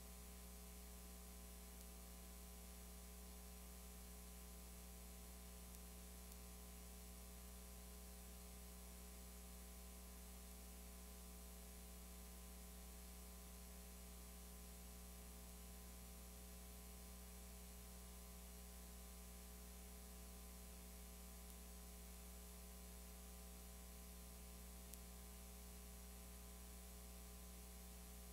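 Near silence: a steady low electrical hum with faint hiss, and one tiny click near the end.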